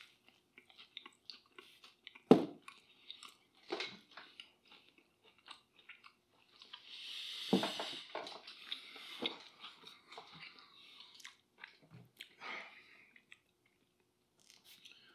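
Chewing and biting into a slice of deep-dish pizza: an irregular run of mouth clicks and crunches, the loudest a single sharp click about two seconds in.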